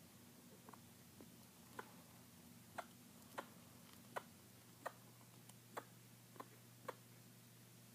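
A pet animal making a string of short, sharp clicking noises, unevenly spaced at about one or two a second: the unexplained noises for which a vet visit has been booked.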